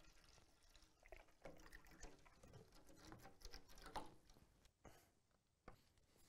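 Faint taps, clicks and rustles of plastic bottles being handled and set down on a table, the loudest tap about four seconds in.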